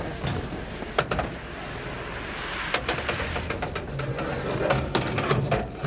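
Scrap metal clanking and rattling as frames and pipes are handled and loaded onto a truck bed: a single knock about a second in, then quick runs of knocks around three seconds in and near the end.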